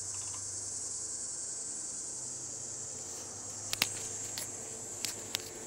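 Steady high-pitched drone of summer insects, with a faint low hum from a commuter train pulling out beside it. A few sharp clicks come about two-thirds of the way in and again near the end.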